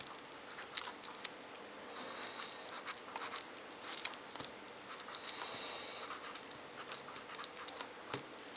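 Black felt-tip marker drawing quick short strokes on paper: a run of scratches and taps as the tip touches down, with a few longer squeaky strokes.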